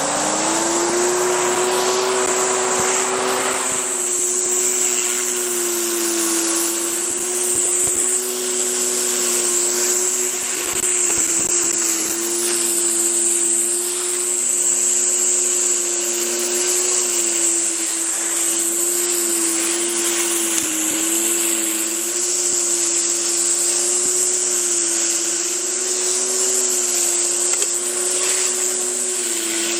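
Westinghouse WPX3400 gas pressure washer running steadily under load, with an even hiss of high-pressure water spraying. The engine's pitch rises a little and settles at the very start.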